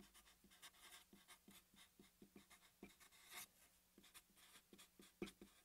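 Felt-tip marker writing on paper: faint, short scratching strokes as the letters are formed, with a slightly louder tap of the tip near the end.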